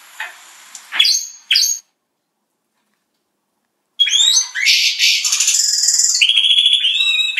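Gloster canaries: two short high chirps about a second in, then complete silence for about two seconds, then continuous fast twittering trills that change phrase every second or so.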